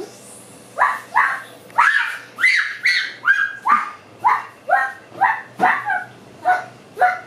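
A dog barking over and over, short sharp barks at about two a second without a break.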